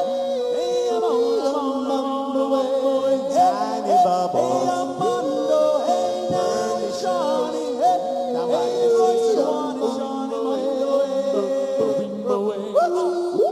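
Four-man a cappella doo-wop group singing in close harmony, several voices holding chords with notes sliding up and down.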